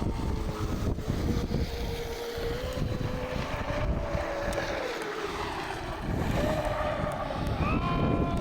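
Small electric motor of a remote-control toy boat whining on the water, its pitch rising and falling as it is throttled. Wind buffets the microphone throughout.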